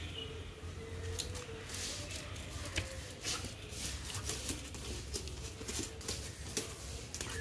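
Scuffing and scraping of a dog's paws and a man's sandals on concrete as a Kombai dog plays tug-of-war on a stick, with many short sharp scrapes and clicks over a steady low hum.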